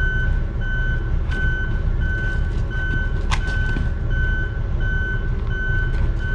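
A Caterpillar bulldozer's reverse alarm is stuck on, beeping evenly about once every 0.7 s over the dozer's steady low engine rumble. A single sharp knock sounds about three seconds in.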